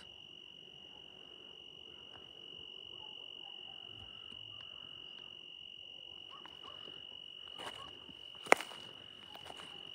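An insect trilling steadily on one high note. A single sharp click, the loudest sound, comes about eight and a half seconds in.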